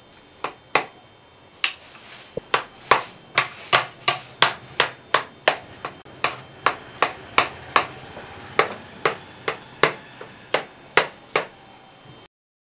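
A metal spoon knocking against a stainless-steel pan in a quick, even rhythm of about two to three sharp clicks a second, as cooked cornmeal (kachamak) is chopped and broken into crumbs for bakardan. The clicking cuts off suddenly near the end.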